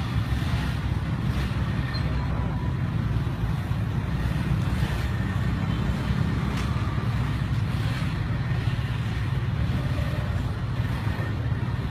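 Steady low engine rumble from a running motor vehicle, unchanging throughout with no revving.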